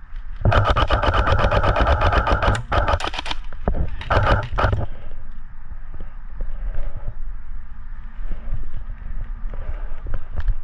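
Airsoft gun firing on full auto: a rapid burst of shots lasting about three seconds, then a second, shorter burst about a second later.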